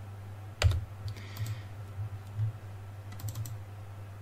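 A few scattered clicks from a computer keyboard and mouse, including a short quick cluster near the end, over a steady low hum.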